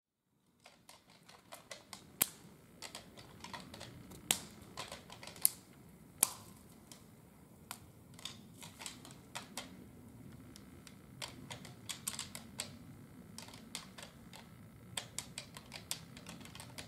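Footsteps through dry forest litter: irregular crunching and sharp snaps of twigs and brush, a few of them louder, over a soft steady rustle.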